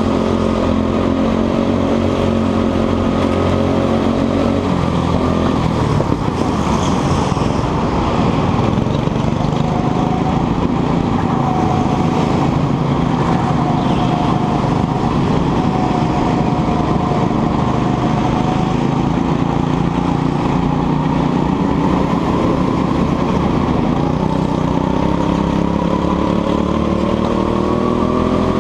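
Go-kart engine heard close up from the driver's seat, running hard for a lap. The revs drop about five seconds in, rise and fall through the corners, and climb again near the end as the kart accelerates onto the straight.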